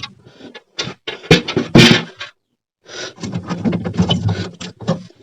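Scattered clicks, knocks and rustles of hands handling refrigerator freezer parts, with a brief silence about halfway through.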